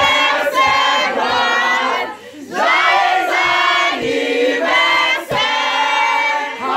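A group of people singing together loudly, many voices at once, with a short break about two seconds in.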